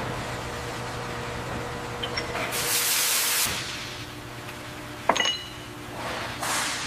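Vehicle workshop sounds: a steady low hum, a burst of hissing air lasting about a second, then a sharp metallic clink that rings briefly, and a shorter hiss near the end.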